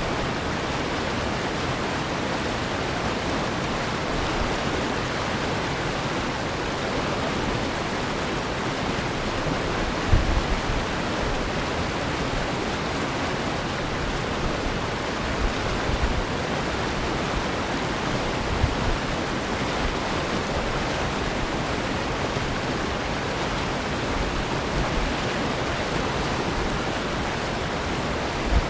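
River rapids rushing steadily, a continuous white-water roar. A few brief low bumps of wind on the microphone, the strongest about ten seconds in.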